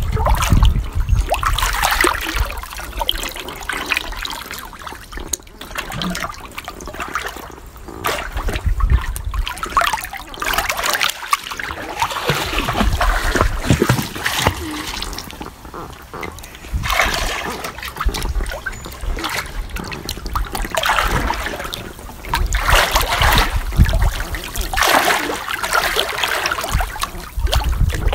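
Pool water splashing and sloshing as a person moves and dabbles in a swimming pool, coming in irregular surges with quieter moments between.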